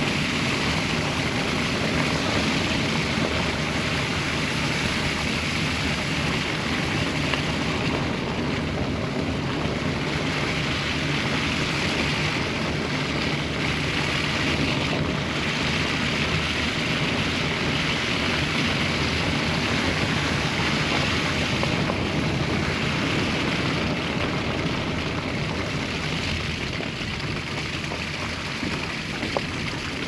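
Steady road and wind noise from a Honda Civic driving on a snow-covered, wet road: an even hiss over a low rumble.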